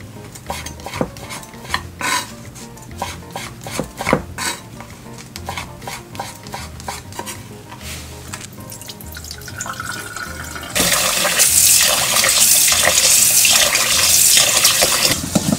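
A kitchen knife cutting dried jujubes on a wooden cutting board, a run of separate sharp taps and slices. About eleven seconds in it gives way to loud rushing, sloshing water as soaked glutinous rice is washed by hand in a stainless steel bowl.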